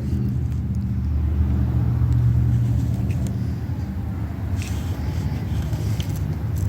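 A steady low mechanical drone, like a motor or engine running, with a few faint small clicks over it.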